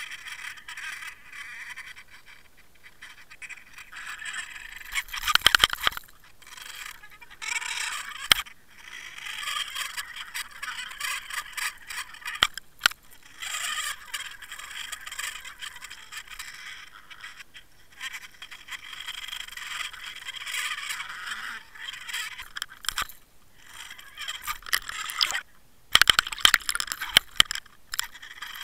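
Water rushing and rattling against an underwater camera towed on a fishing line, a hissy wash that comes and goes. Sharp knocks and scrapes break through, clustered about five seconds in and again near the end.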